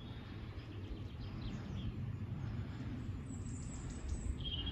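Faint, scattered bird chirps over a steady low rumble of outdoor background noise, with a brief high bird note near the end.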